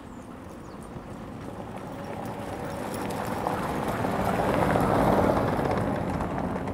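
A sled dog team and the rig it pulls coming along a snowy trail and passing close. The rough, unpitched noise of paws and runners or wheels builds steadily to a peak about five seconds in, then eases slightly.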